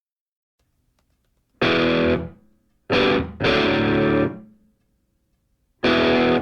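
Music: distorted electric guitar chords, four hard-struck chords that each ring briefly and stop, with short silent gaps between them. The first chord comes in after about a second and a half of silence.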